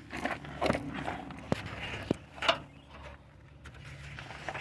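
Several short, sharp clicks and knocks with some rustling: handling noise from parts and tools being worked by hand.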